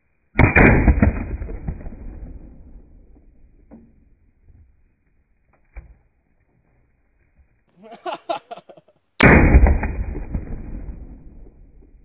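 Two shots from a 20-gauge black-powder Howdah Hunter double-barrel pistol, about nine seconds apart, each a sharp bang that echoes and dies away over two to three seconds. A short, quieter burst of noise comes about a second before the second shot.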